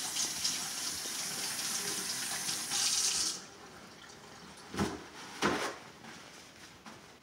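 Kitchen sink faucet running steadily over hands being washed, shut off about three seconds in. Two short sharp sounds follow a little over half a second apart.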